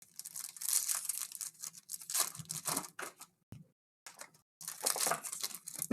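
Trading card packs being opened: wrappers tearing and crinkling in a string of rustling bursts, with a few short pauses a little past the middle.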